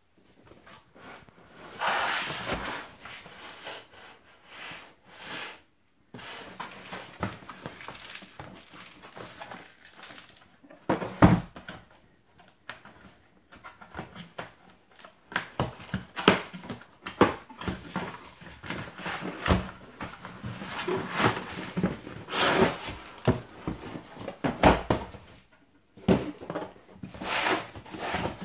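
Cardboard box being handled and opened: scraping and rustling of cardboard, broken by sharp knocks and clicks as a hard plastic tool case is slid out and set on a wooden surface.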